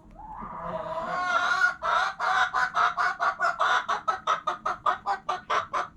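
A hen calling: a drawn-out call that swells over the first two seconds, then breaks into a rapid run of short clucks at about five a second.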